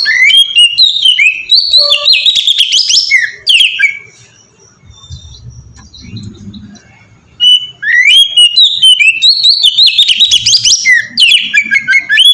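Oriental magpie-robin singing in two fast runs of varied whistles and chirps, each a few seconds long, with a pause of about three seconds between them.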